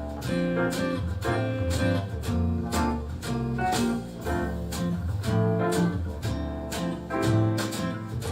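Instrumental music with plucked guitar over heavy bass and a steady beat, played through a Sony SRS-XB22 Bluetooth speaker with its Extra Bass mode on.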